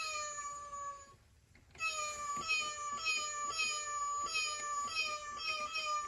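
Toy robot cat meowing: one long falling meow, a short pause, then a quick run of short falling mews, about two or three a second.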